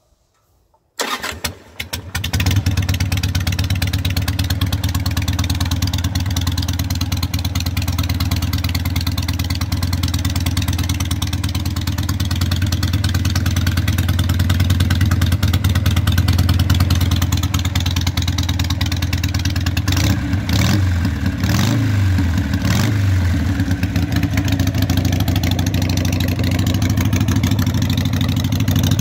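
Harley-Davidson Sportster 883 air-cooled V-twin with a Vance & Hines exhaust starting about a second in: a brief crank, then it catches and settles into a steady idle, with a few quick throttle blips about two thirds of the way through.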